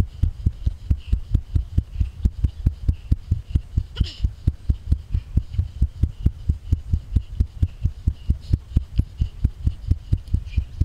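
Fast, regular low thumps, about four a second, from the jolting of a body-worn camera as its wearer runs along an obstacle-race course.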